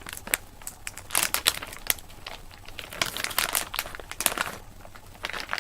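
Packaging of dried figs crinkling and rustling as it is handled, in irregular bursts of crackles.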